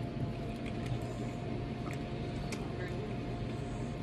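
Steady low hum of restaurant room noise with a thin steady tone running through it, and a few faint light clicks.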